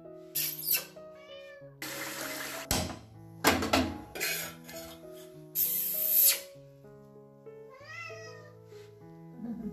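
Domestic tabby cat meowing twice, once near the start and once about 8 seconds in, over steady background music. Between the meows come loud bursts of hissing and clatter.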